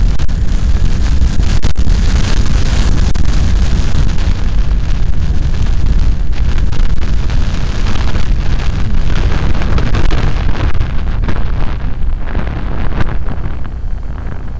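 Wind rushing and buffeting over the microphone of a camera on a moving Yamaha RayZR scooter, a dense low rumble that eases off near the end as the scooter slows.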